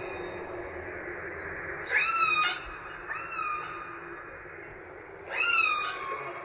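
Orca (killer whale) calls: three high, whistle-like cries with many overtones, each sweeping sharply up and then holding or slowly dropping in pitch. The first and last, about two and five seconds in, are the loudest, over a steady hiss.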